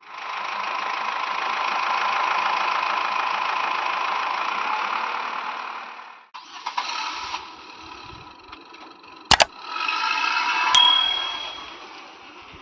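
An engine-like drone that runs steadily for about six seconds and cuts off, then a sharp double click and a ringing ding that fades away.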